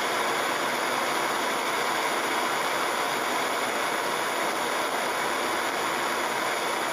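Handheld torch burning with a steady hiss as its blue flame heats the nail of a dab rig.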